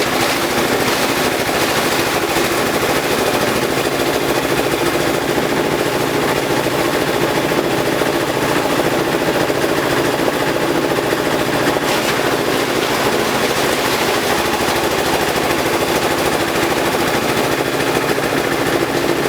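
Compost shredder machine running with a fast, steady rattle.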